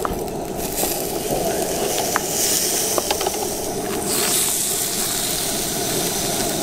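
Seasoned halibut fillets sizzling on a hot grill grate, a steady hiss, with a few light clicks of metal tongs against the grate as the pieces are lifted and turned.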